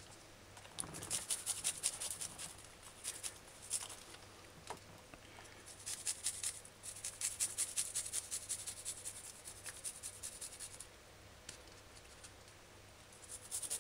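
Garlic clove rubbed against a flat metal hand grater, grating it to a pulp: runs of short scraping strokes, about three or four a second, with pauses between.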